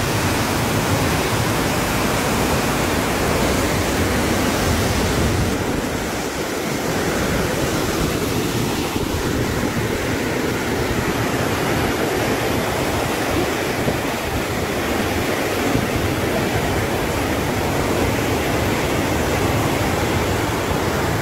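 Steady rushing of fast, turbulent dam outflow water churning past a concrete ledge.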